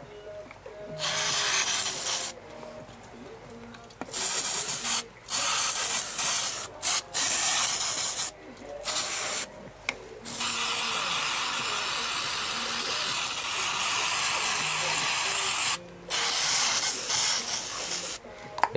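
Aerosol carburettor cleaner hissing in about seven spurts onto a chainsaw carburettor. Most spurts last about a second; one long spray lasts about five seconds in the middle.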